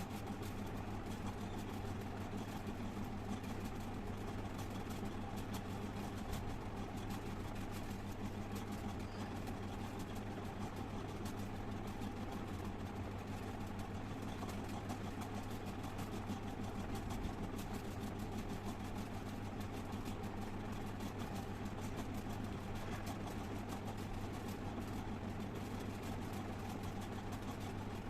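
Steady hum of a running electric fan, with an even low drone throughout.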